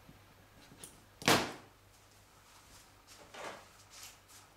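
Small pliers snipping through the plastic sleeper web of Peco Code 55 N gauge flexi track: one sharp snap about a second in, then a couple of fainter clicks.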